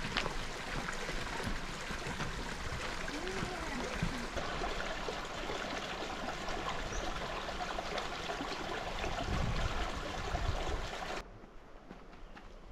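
Creek water running and trickling, a steady rushing noise; it cuts off abruptly to a much quieter background about eleven seconds in.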